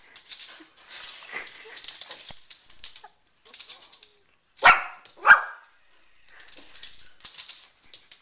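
Small dog barking twice, sharply, about half a second apart near the middle, with faint scratching and ticking noises before and after.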